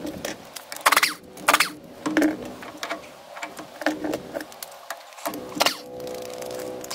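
A few ringing hammer blows on the steel steering knuckle and arm of a Kubota B7500 front axle. Near the end a power impact wrench starts with a steady whine, running the cover bolts out.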